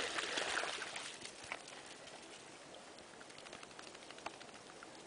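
A small dog splashing through shallow lake water with a stick in its mouth, the splashing dying away about a second in as it comes out onto the shore, leaving only faint scattered ticks.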